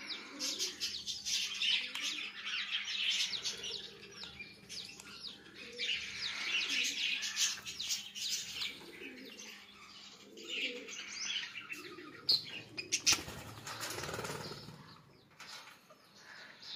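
Alexandrine parakeets chattering with many short, high chirps and calls, with a burst of rustling noise about thirteen seconds in.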